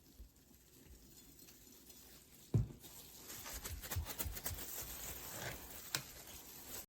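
Faint handling noises from hands seasoning a raw pork rib roast: a single dull thump about two and a half seconds in, then soft pats and clicks.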